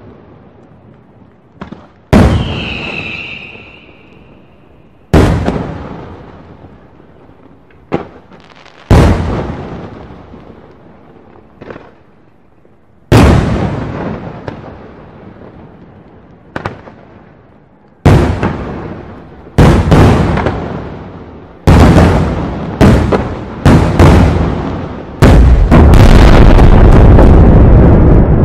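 Aerial firework shells bursting: single loud bangs a few seconds apart, each with a long fading echo, coming quicker and quicker in the second half and running together into a continuous barrage of bursts near the end.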